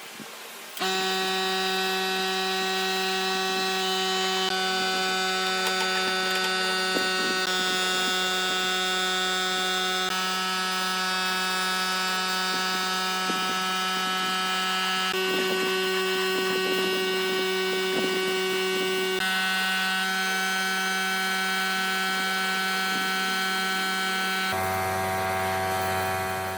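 Background music: sustained synthesizer chords that change every few seconds, fading out near the end.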